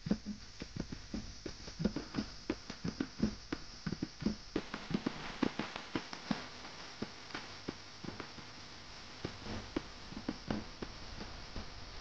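Mountain bike rattling and knocking as it rolls over a rough dirt track: irregular knocks and clatter several times a second over a steady hiss of tyres and wind, the hiss growing a little about halfway through.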